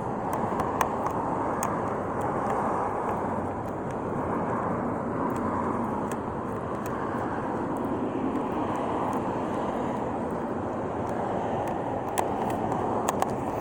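Steady rushing background noise with scattered faint clicks.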